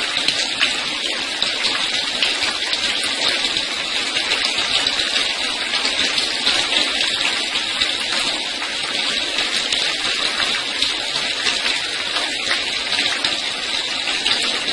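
Water falling in a steady, even rush like rain: the artificial rain shower sprayed over a caged songbird.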